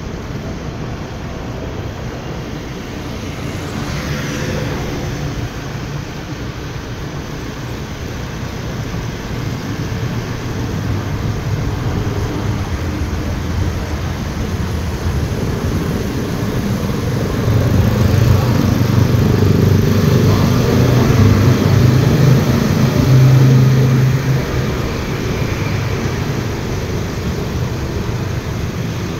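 Riding a motorbike through traffic on a wet road: a small engine running steadily under the hiss of tyres on wet tarmac, with other motorbikes and cars around. It grows louder for several seconds past the middle.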